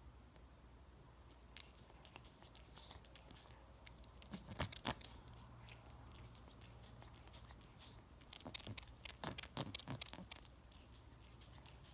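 Cat licking its own fur: a run of quick, short licking clicks that comes in two louder bursts, about four seconds in and again from about eight to ten seconds in, with fainter licks between.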